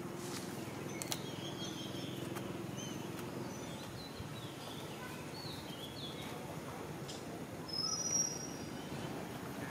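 Steady low outdoor background noise with scattered short high bird chirps: a cluster in the first few seconds and a brief high twitter near the end.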